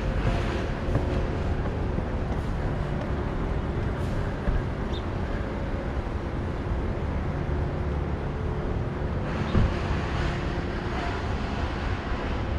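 Steady rumble of road traffic, with a few faint knocks, the clearest about nine and a half seconds in.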